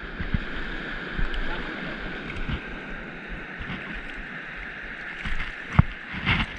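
Steady wash of sea water around the rocks, with wind rumbling on the microphone and a single sharp knock near the end.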